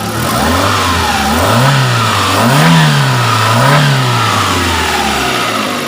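Chery QQ 311 engine revved from idle about four times, pitch rising and falling with each blip, then settling back to a steady idle near the end. It is running evenly on newly fitted spark plug wires that replaced cracked ones blamed for the misfire.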